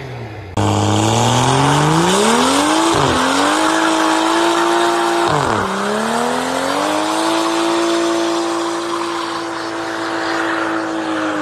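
BMW F-chassis car with an aftermarket valved exhaust revving hard through a burnout: the engine climbs steeply and holds at high revs, dropping sharply twice before rising again, over the hiss of spinning tyres.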